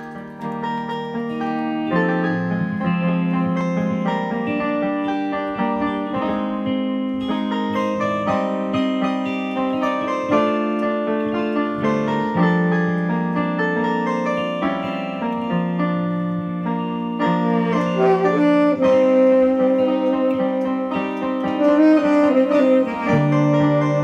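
Instrumental music: keyboard chords under a melody line, starting right at the beginning. In the second half the melody holds long notes with vibrato.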